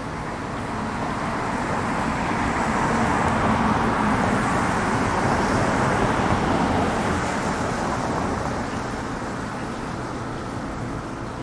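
A road vehicle passing: a rushing noise that builds over a few seconds, is loudest around the middle, and fades away.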